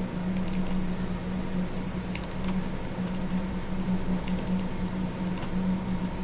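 Scattered faint clicks from computer use, in small clusters of two or three, over a steady low hum.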